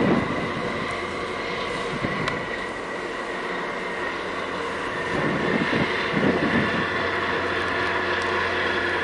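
Steady engine drone from a harbour tug running alongside a large container ship, with a low hum that grows stronger about five seconds in. A few gusts of wind hit the microphone.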